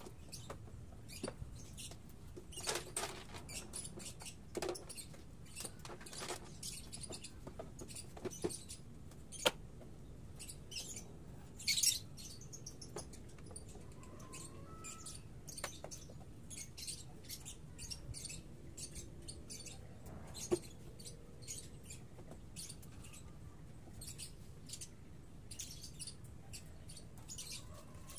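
Faint, irregular small clicks and taps of hand work on a scooter's rear end, with a couple of sharper clicks about ten and twelve seconds in.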